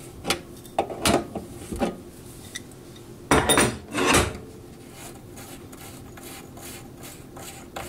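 Crescent wrench clicking and scraping on a kitchen faucet's stem nut as it is loosened, with two louder knocks a little over three seconds in, then faint rubbing and ticking as the loosened part is turned by hand.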